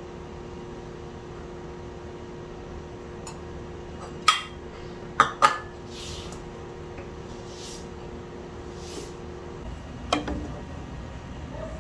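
Kitchenware clinking as cooked rice is served from a stainless-steel colander into a ceramic bowl: three sharp clinks a little after four and five seconds in, a few soft scooping swishes, and one more clink about ten seconds in. A steady low hum runs underneath and stops just before the last clink.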